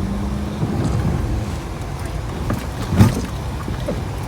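Car driving on a rough road, heard from inside: steady low engine and road rumble. A single sharp knock about three seconds in is the loudest moment.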